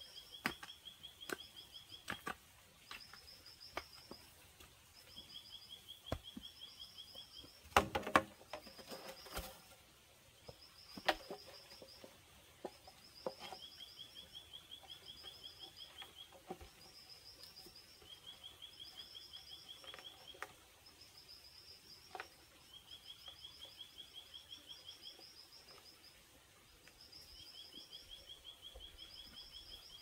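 Repeated chirping: short, rapid trills at two alternating pitches, a few seconds apart. Scattered knocks and scrapes of hand work in soil come through it, with a louder cluster about eight seconds in.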